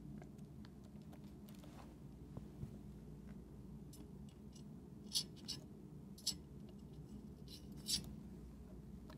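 Quiet room with a faint low hum, and a few short, light clicks in the second half from a screw and drill bit being handled against a metal wall-plate bracket. No drill motor is heard running.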